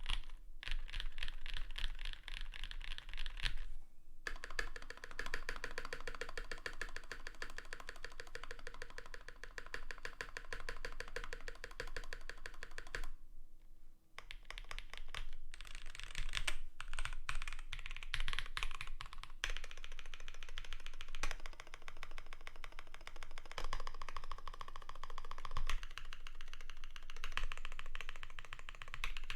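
Fast, continuous typing on a Primus75 custom mechanical keyboard with lubed Everglide Dark Jade linear switches, an aluminium plate, foam dampening and GMK keycaps. There are two brief pauses, about four seconds in and again around thirteen seconds in.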